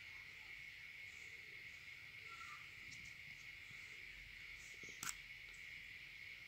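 Near silence, with a faint steady high-pitched drone and a single sharp click about five seconds in.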